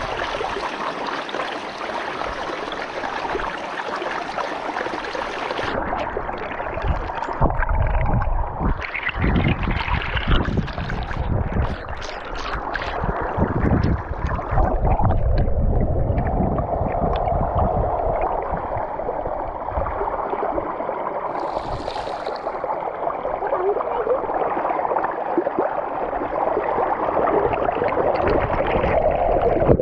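Muddy river water rushing and gurgling over rocks, heard from a camera at the waterline. About six seconds in the high part of the sound drops away and it turns muffled as the camera dips under the surface and water washes over it.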